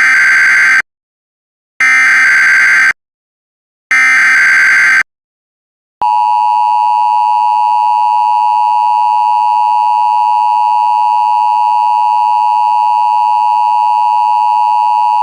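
Emergency Alert System test signal: three one-second bursts of SAME header data, about a second apart, followed about six seconds in by the steady, loud two-tone EAS attention signal, which holds unbroken through the rest.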